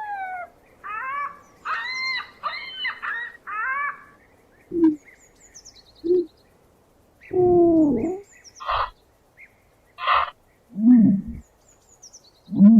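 Ostriches calling. First comes a quick run of short chirping calls. Then low short calls, a longer call that falls in pitch, two harsh rasping bursts, and more low calls near the end.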